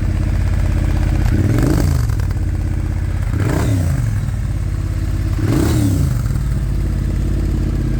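Triumph Speed Twin 1200's parallel-twin engine, fitted with a REMUS aftermarket exhaust, idling and blipped three times, the revs rising and falling back to idle about every two seconds.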